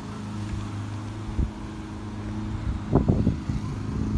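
A steady engine hum, with a short knock about a second and a half in and a louder cluster of knocks and rustles about three seconds in.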